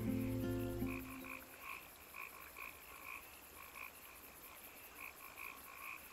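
Frogs calling: an even series of short croaks, about two or three a second. The last guitar notes of the music die away in the first second and a half.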